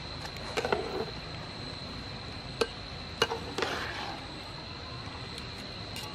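Wire-mesh strainer clinking against a metal frying pan as boiled duck eggs and ovaries are scooped out of the boiling water: a few sharp clinks with some splashing, over a steady high thin tone.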